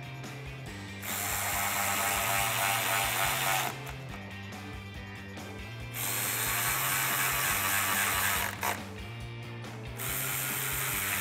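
Cordless electric ratchet spinning in three runs of a few seconds each, driving in the screws that hold a bumper cover. It starts about a second in, again near the middle, and once more near the end.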